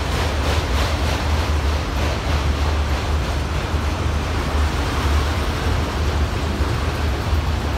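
Autorack freight cars of a passing train rolling by, a steady rumble of steel wheels on the rails.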